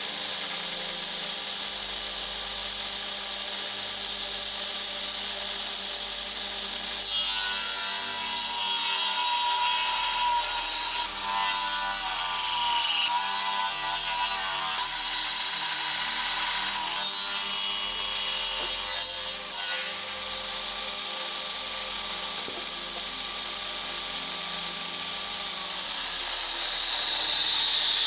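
Circular table saw running, its blade whining steadily, then cutting through a long wooden board for about twelve seconds from roughly seven seconds in. Afterwards the saw runs free again, and near the end the whine falls in pitch as the blade slows down.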